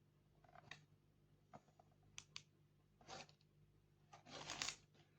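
Faint handling noise: a few light clicks and short rustles, with the loudest rustle near the end.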